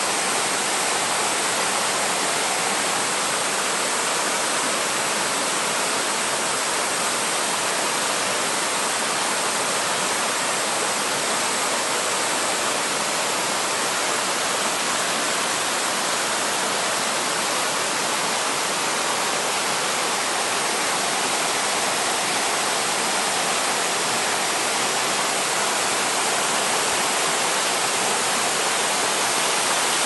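Mountain valley stream rushing and splashing over rock slabs in small cascades: a steady, unbroken rush of white water.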